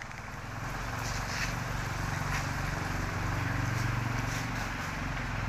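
A vehicle engine running steadily with a low hum that swells over the first second and then holds, with a few faint light ticks over it.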